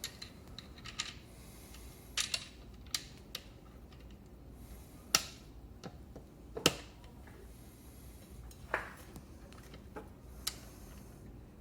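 Irregular light clicks and knocks of metal parts being handled as the hub motor's axle and washers are seated in the electric scooter's fork slots, with two sharper knocks about halfway through.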